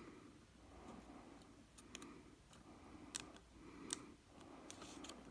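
A few faint, sharp clicks and taps of small plastic parts as a keyboard ribbon cable is worked into its connector on a laptop motherboard. The two sharpest clicks come just after three seconds and just before four seconds, over near silence.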